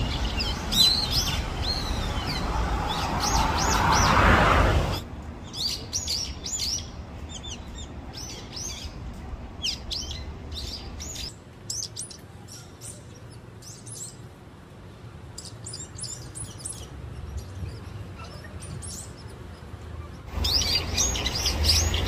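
Birds chirping: many short, quick, high calls follow one another. In the first five seconds and again near the end they sit over a steady rushing background noise.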